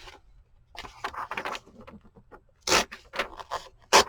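Paper pages of a book being handled: a series of short rustling, scraping bursts, with a sharper, louder one about two-thirds of the way through.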